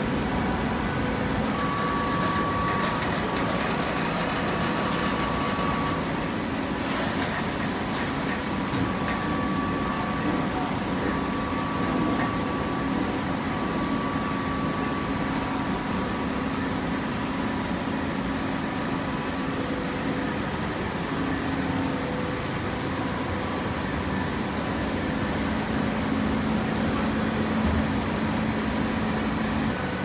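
TCM horizontal hydraulic baler running on shredded paper: a steady mechanical hum from its motor and hydraulic pump, with faint whining tones over it that come and go.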